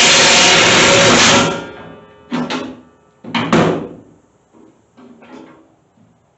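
3/4-inch impact wrench hammering on a bush hog blade bolt to break it loose: one long rattling burst of about two seconds, then two short bursts, then a few faint clanks.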